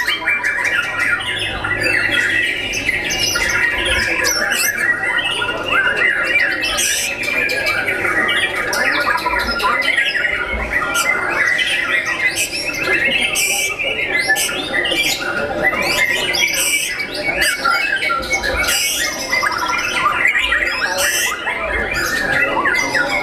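White-rumped shama singing a long, fast, varied song of whistles and warbles, with other caged songbirds singing over it the whole time.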